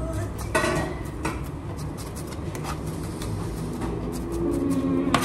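Kitchen knife chopping greens on a plastic cutting board: irregular taps of the blade striking the board, several times a second.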